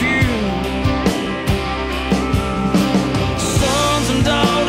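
Background music: a country rock song with a steady drumbeat.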